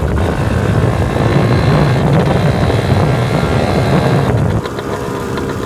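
Engine of a Jianshe off-road machine running hard under throttle as it is ridden along a dirt track. About four and a half seconds in, the throttle is closed and the engine drops to a quieter, steadier note.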